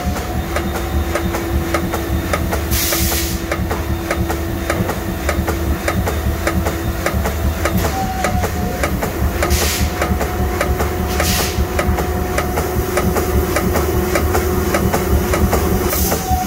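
CNC mill driving a square broach into a hole in brass with rapid, evenly repeated strokes, each a sharp tap as the tool shaves a little off the walls of the square hole. Under the tapping runs a steady machine whine and rumble, with a few brief hisses.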